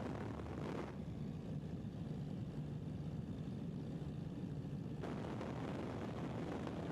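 Steady low rumble of an aircraft in flight, heard from on board. The higher hiss drops away suddenly about a second in and comes back just as suddenly about five seconds in.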